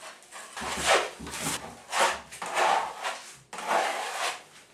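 A wide drywall knife scraping over wet joint compound on a plasterboard ceiling, smoothing it over the crack tape. About five scraping strokes; the last, near the end, is the longest.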